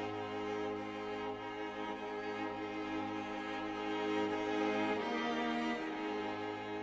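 Slow background music of bowed strings, cello and violin, holding long sustained notes with a chord change about five seconds in.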